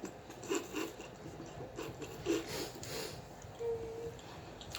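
Close-miked eating noises from a mouthful of hot, spicy noodle stew, coming in short scattered bursts, with a short steady hum about three and a half seconds in.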